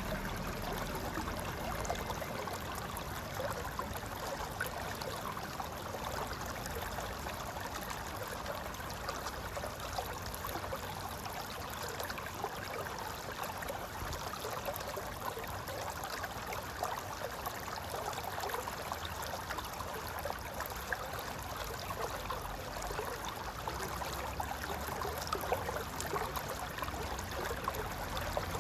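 Mountain river flowing and gurgling over rocks: a steady rush of water with small splashes flickering through it.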